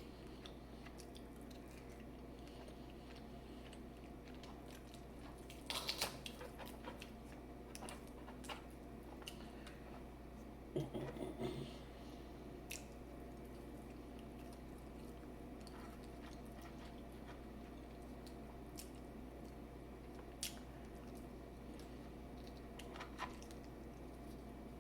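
A person eating seafood boil: quiet chewing and squishing with a few sharp clicks and crunches, the loudest about six and eleven seconds in, over a steady low hum.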